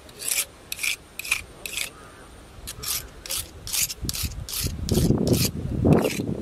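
A steel knife blade drawn repeatedly across a rock to sharpen it: a dozen or so quick scraping strokes, about two a second. Louder low handling sounds come in near the end.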